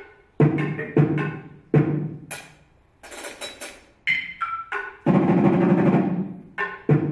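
Tabletop percussion: assorted small objects struck with wooden sticks, in sharp separate knocks at an uneven rhythm. A brief noisy rustle comes about three seconds in, then a fast roll of strikes lasting about a second and a half, closed by a single hit.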